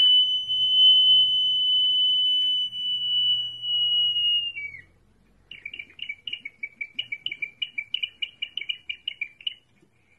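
Ancient Peruvian ceramic whistling jar (double-chambered vessel with a bird-head spout) sounding as it is tilted, air pushed out through its whistle. It gives one long high steady whistle that drops off at its end about halfway through, then after a short pause a fast warbling trill of chirps like a bird's song.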